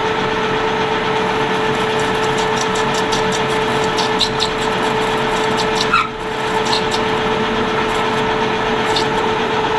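Metal lathe running with a steady hum while turning a brass hex bar, with a few light ticks and scrapes from the cutting tool partway through.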